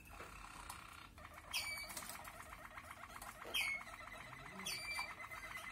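Malinois (Waterslager) canary singing a rapid rolling trill, broken three times by a sharp downward-swooping note.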